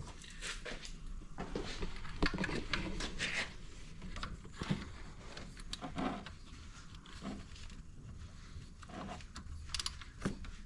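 Irregular small metallic clicks and scrapes of hand tools working on the T30 Torx screws of a snowmobile engine's oil filter cover as they are taken out.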